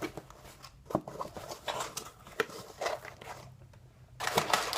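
Packaging being handled: rustling and crinkling with scattered small clicks and knocks, and a louder rustle near the end.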